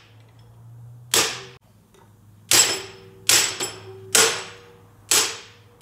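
Hammer striking steel spring compressor clamps to seat them on a strut's coil spring: five sharp metal blows about a second apart, each ringing briefly.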